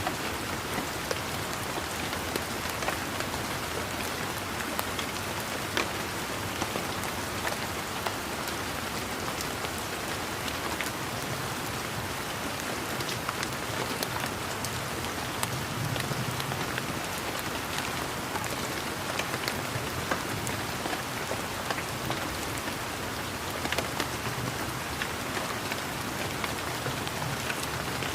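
Steady rain falling, an even hiss of rain with many individual drops ticking close by. A faint low rumble swells and fades twice underneath.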